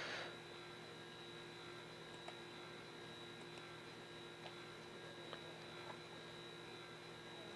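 Near silence: a faint steady electrical hum with a high whine in the recording, broken by a few faint ticks.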